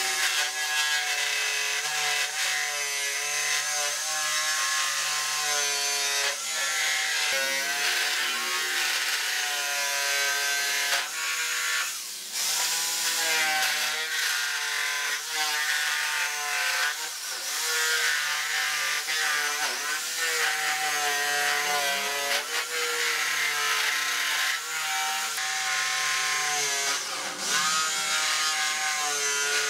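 Makita corded jigsaw cutting through a wooden board, its motor running under load with a wavering pitch and the blade rasping through the wood. It eases briefly about twelve seconds in and again near the end.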